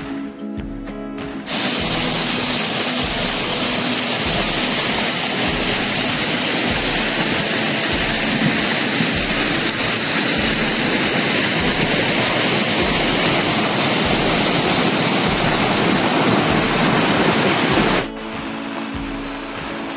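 Acoustic guitar music breaks off about a second and a half in for the loud, steady rush of a mountain waterfall cascading over rock, which stops abruptly near the end as the guitar music returns.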